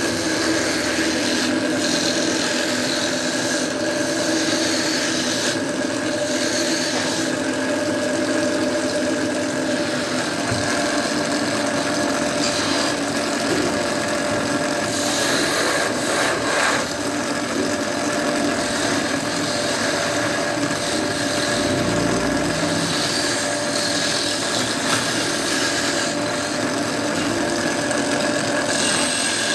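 Belt-driven wood lathe running with a steady hum while a hand-held chisel cuts a spinning wooden rolling pin; the scraping of the cutting comes and goes as the tool is worked along the wood.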